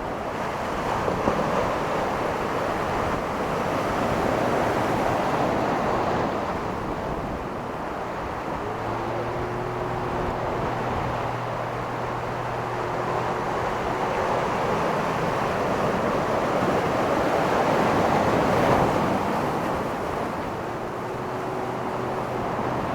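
Ocean surf breaking and washing on a beach in slow swells, with wind on the microphone. From about nine seconds in a steady low engine hum joins, drops away midway and comes back near the end.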